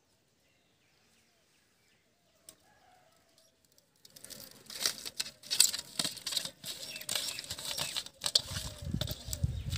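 Nearly silent at first. About four seconds in, hands start rubbing salt and turmeric into pieces of shol fish on a steel plate: a dense, wet crackling and rustling with many small clicks, and a few low bumps near the end.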